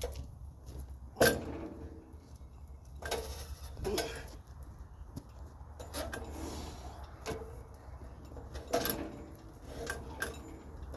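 Scattered knocks and metal clanks, roughly one every one to two seconds, from handling a heavy log on the bed of a portable sawmill, over a steady low rumble.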